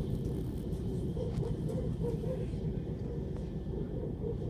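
Steady low rumble of a moving Moscow Central Circle electric train heard from inside the carriage: wheels running along the rails at speed.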